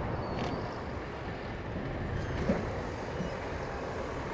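Lumber-handling machine running steadily with a low-pitched noise as it carries a stack of sawn boards out of the sawmill, with a few faint clicks.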